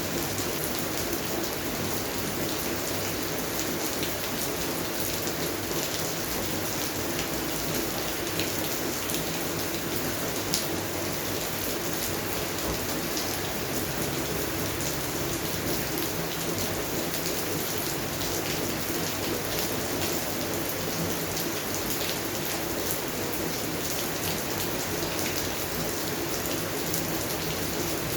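Steady rain falling, a constant hiss with many close drops ticking, one sharper drop hit about ten seconds in.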